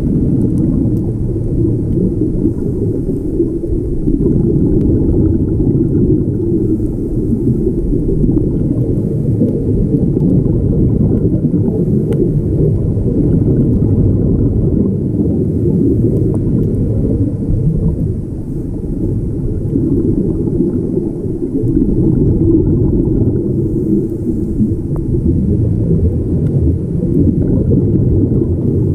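Muffled low underwater rumble heard through a GoPro's waterproof housing, with a faint hiss of divers' exhaled bubbles every few seconds.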